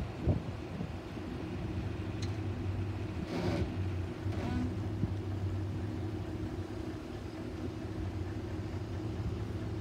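2004 Chevrolet Avalanche's V8 engine running at a low steady note as the truck pulls a pickup on a tow strap, with a brief rush of noise about three and a half seconds in.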